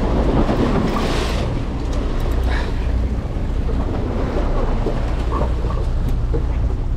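Fishing boat's engine running with a steady low hum, with sea water rushing and splashing against the hull and wind on the microphone; a louder wash of water in the first second.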